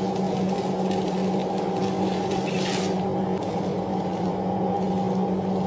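Steady machine hum throughout. About two and a half seconds in comes one brief scrape, as a long knife is worked along the cut through a giant bluefin tuna.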